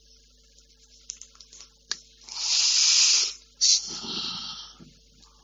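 Close-miked breathing from the lecturer: a long hissing breath that swells and fades, then a second, rougher breath that starts abruptly, with a few small clicks before them.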